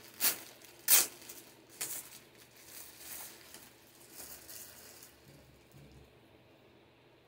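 Thin plastic packaging being torn open and handled: three loud rips in the first two seconds, then softer crinkling that dies away about five seconds in.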